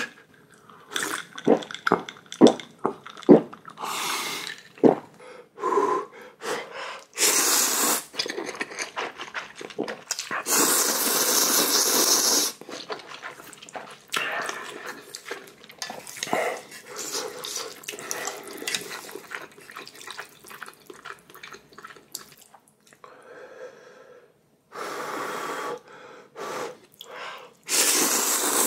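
A man eating spicy ramyeon noodles close to the microphone: several loud slurps of noodles, the longest about two seconds, between many short clicks of chewing and mouth sounds.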